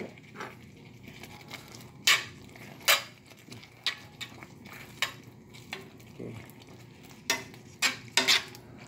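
A spoon stirring potato and carrot chunks into thick caldereta sauce in a skillet, with irregular sharp clinks of the utensil knocking against the pan.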